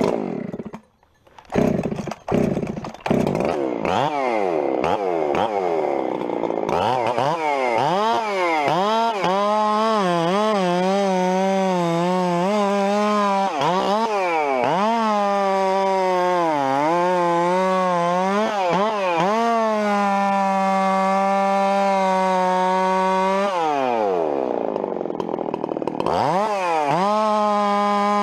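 Two-stroke chainsaw started from choke: it fires in short sputtering bursts, then runs. It revs hard and cuts through a log several times, the engine note sagging under load in each cut and climbing again. Near the end it drops back to idle and then revs up again.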